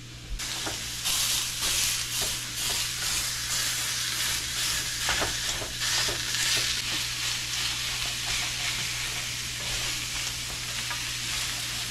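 Ground chorizo sizzling as it fries in a pan, the sizzle starting suddenly about half a second in, with scattered clicks of a utensil stirring it.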